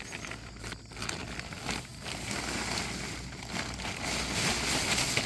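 Irregular rustling and crackling noise that grows louder toward the end.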